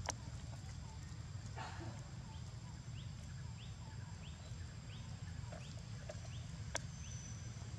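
Outdoor ambience: a steady low rumble with a few sharp clicks, and, from about two seconds in, a run of short rising chirps repeated roughly every two-thirds of a second.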